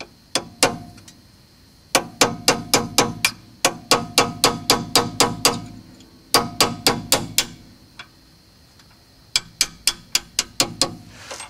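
Hammer striking a punch to drive out a brake caliper's pad retaining pin: runs of quick, ringing metal-on-metal taps, about four or five a second, with short pauses between the runs.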